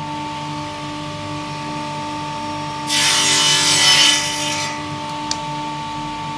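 Miter saw blade cutting through plywood in a single short cut, about three seconds in and lasting under two seconds.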